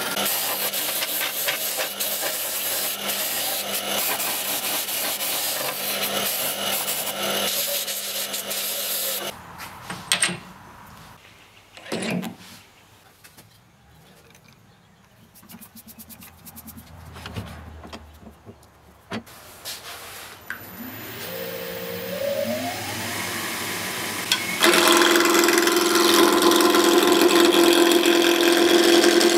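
A bandsaw cutting through a wooden blank, with steady noise, stops about a third of the way through. After a quieter stretch with a few knocks, a wood lathe motor spins up with a rising whine. For the last few seconds a gouge cuts the spinning wood with a loud, steady rasping.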